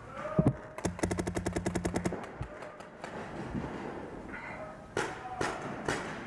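Paintball markers firing: a fast string of shots at about eleven a second for just over a second, then a few separate shots near the end.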